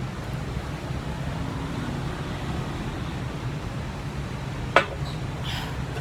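Steady low hum of distant city traffic, with one sharp click a little before the end.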